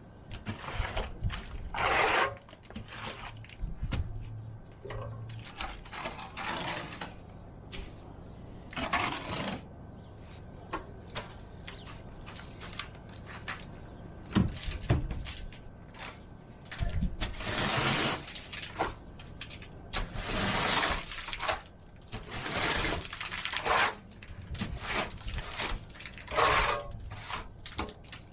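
Steel trowel scraping and spreading stucco on a wall, in irregular strokes of half a second to a second and a half.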